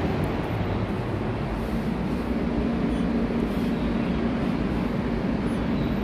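Nippon Elevator Manufacturing passenger elevator car travelling: a steady hum and rumble of the moving car, with a faint low tone for a couple of seconds in the middle.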